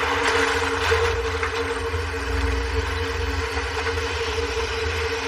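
Propeller airliner's piston engines droning steadily, heard from inside the cockpit, with a constant low rumble and a steady hum.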